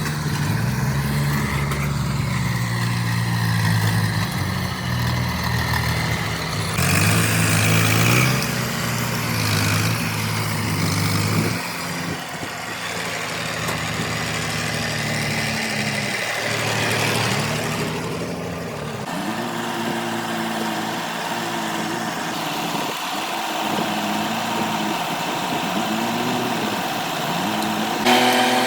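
Heavy diesel engine of a working backhoe loader running steadily, then revving up and down again and again in the second half.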